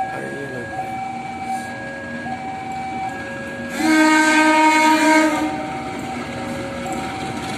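KAI diesel locomotive hauling a passenger train as it approaches, sounding its horn once for about a second and a half near the middle. A repeating electronic warning tone that steps between pitches runs underneath.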